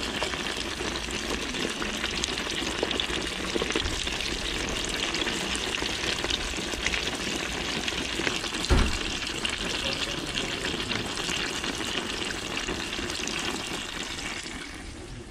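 Hot peanut oil sizzling and crackling steadily in a deep-fryer pot as a duck heart fries in it. A single knock comes about nine seconds in, and the sizzling fades near the end.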